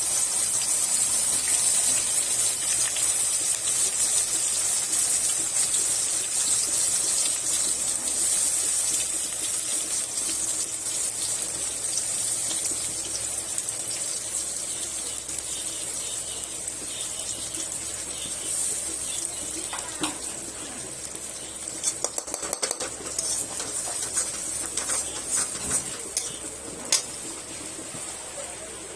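Wet green chilli, tomato and onion purée sizzling in hot oil with whole spices in a pan, a steady high hiss that slowly dies down as the moisture cooks off. A spatula clicks and scrapes against the pan in the second half.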